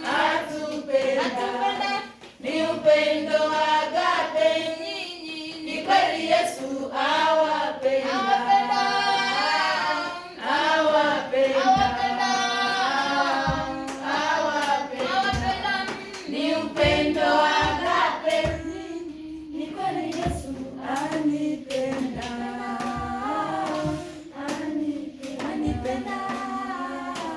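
A group of children singing a song together, with hand clapping keeping time through the middle of it.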